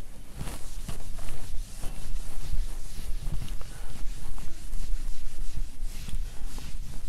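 Whiteboard being wiped clean with an eraser: a scratchy rubbing in many quick, irregular strokes as the marker writing comes off.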